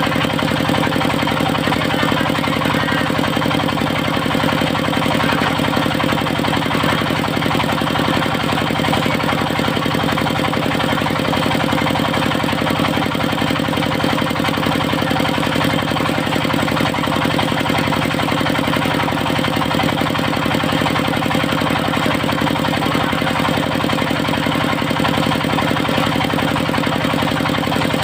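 Engine of a portable circular-blade sawmill running at a steady speed, without change in pitch or load.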